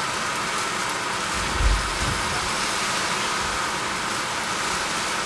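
A steady hiss from the gas stovetop where oil is heating, with one dull low thump about a second and a half in.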